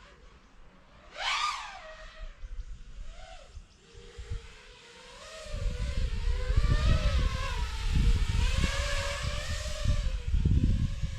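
iFlight Nazgul Evoque F6D FPV quadcopter's motors whining, their pitch rising and falling with the throttle, with a sharp upward sweep about a second in. From about halfway, a heavy low rumble joins the motor whine.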